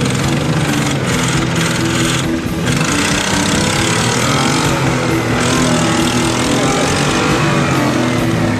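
1987 Nissan pickup's engine revving hard under load, the revs rising and falling while its wheels spin in loose dirt on a steep climb.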